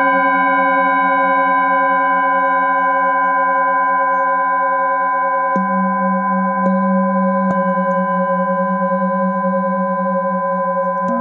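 Singing bowls ringing with many layered, sustained tones, the low tone wavering steadily. Light mallet strikes renew the ringing about halfway through, twice more shortly after, and again near the end.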